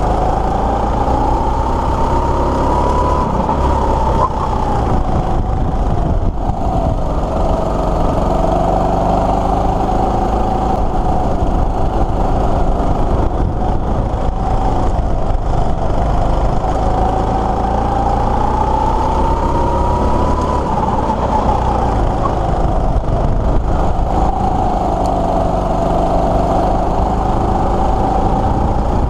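Rental go-kart engine running under throttle, heard close up from the driver's seat. Its pitch climbs steadily to a peak about three seconds in and again about twenty seconds in, then falls away sharply each time as the kart speeds up along the straights and slows for the corners.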